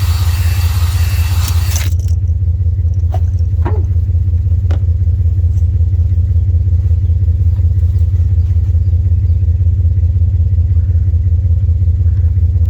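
3-bar cylinder hone turning in the engine's bore with a hissing scrape that cuts off suddenly about two seconds in. A steady low hum runs underneath throughout, and a few faint clicks follow.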